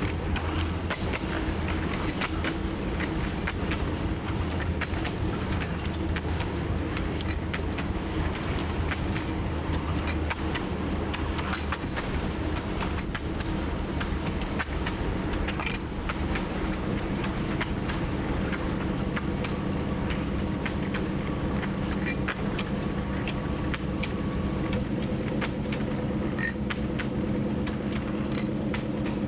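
TU7 narrow-gauge diesel locomotive's V12 diesel engine running steadily under way, with frequent short clicks and rattles over it. The engine note rises a little and grows fuller about two-thirds of the way through.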